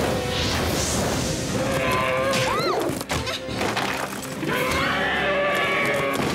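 Dramatic action score for an animated series, with a rushing magical blast effect near the start and crash-like hits layered over the music.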